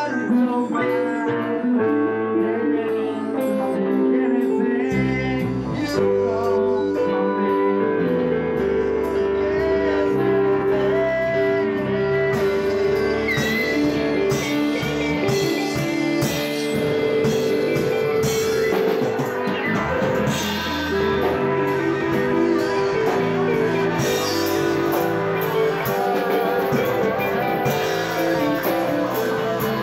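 Live band playing: electric guitars through amplifiers and a drum kit with cymbals. The low end fills out about five seconds in.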